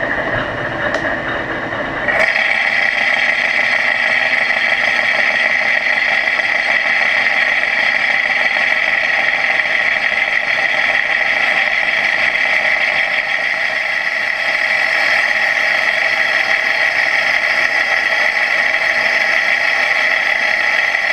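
Victor engine lathe running with a brass pump impeller spinning in the chuck while a boring bar cuts the impeller's bore oversize. About two seconds in the cut starts and the sound gets louder, with a steady high-pitched tone.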